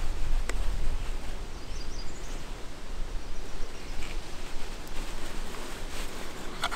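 Knife blade pressing into a green softwood branch to cut a stop cut around it, giving a few short sharp clicks, over steady outdoor background noise with a low rumble early on.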